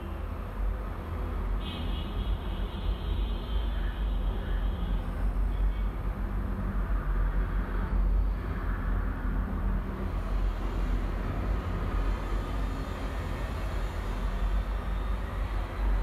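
Steady low rumble with a hiss over it, with no distinct events.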